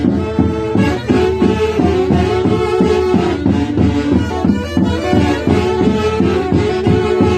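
Andean orquesta típica playing a lively instrumental tune, wind instruments carrying a fast melody of quick, repeated notes over a steady low accompaniment.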